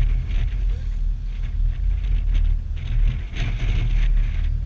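Steady low rumble of wind buffeting the microphone aboard a boat at sea, with an uneven hiss of sea water washing along the hull. The hiss swells briefly a little past three seconds in.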